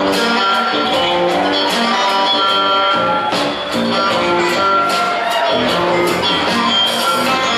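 Live trio playing an instrumental passage: electric guitar lines, with a note bent down about five seconds in, over upright bass and drums with regular cymbal hits.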